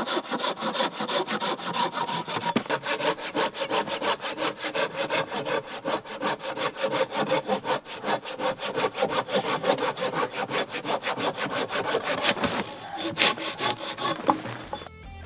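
Hand saw cutting through a wooden log with quick, even back-and-forth strokes, about three a second, which stop near the end.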